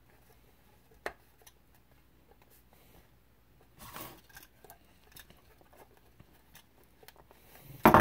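Handling noises of a leather-wrapped metal hip flask with a phone ring holder stuck to it: a sharp click about a second in, a short scrape around the middle, and a burst of louder knocks near the end.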